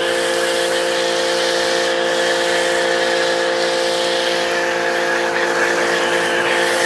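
Giraffe Tools Grandfalls Pro electric pressure washer running steadily under load: a constant motor hum under the hiss of foam spraying from a foam cannon.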